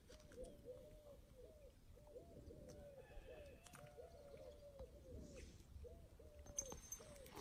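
Birds calling faintly: many short, soft, overlapping calls that rise and fall, repeating over and over.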